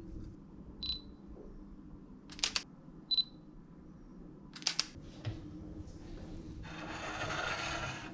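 Digital camera taking two photos: each time a short high focus beep, then the shutter's sharp double click about a second and a half later. Near the end, a second and a half of rustling, scraping noise.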